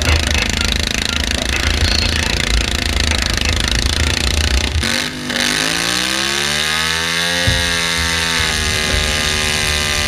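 Pulling garden tractor engine running hard with a rough, heavy sound. A little before halfway the sound breaks off abruptly; then an engine's pitch climbs for about two seconds as it revs up, and it holds steady at a high speed.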